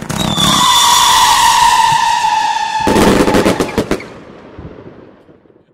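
Fireworks: a loud whistle that falls slowly in pitch for about three seconds, then a quick barrage of sharp cracks and bangs that dies away.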